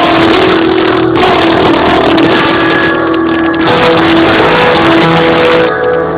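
Loud circus show music with held, changing notes, heavily distorted and clipping through a phone's microphone.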